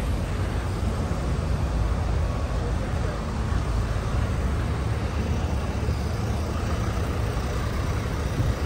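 Steady low rumble of motor-vehicle noise, with no distinct events, and voices faintly in the background.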